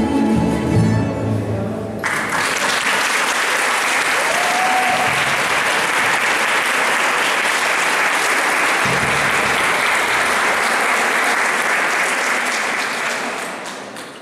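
A plucked-string ensemble of guitars, cuatros and double bass rings out its final chord, which stops about two seconds in. Audience applause follows, steady, then fading out near the end.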